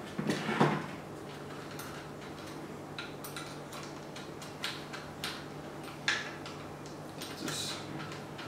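Small metallic clicks and ticks of hex bolts being turned into a rifle's magazine well with an Allen key, with a louder handling knock about half a second in.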